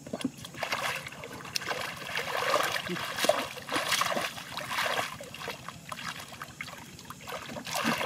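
Muddy shallow water splashing and sloshing as hands scoop and grope through it, in irregular bursts.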